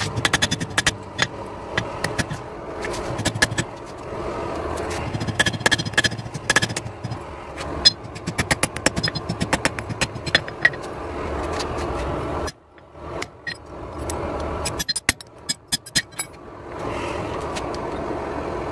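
Runs of quick hammer blows on hot steel during forging, over a steady mechanical running noise that drops away briefly after about twelve seconds.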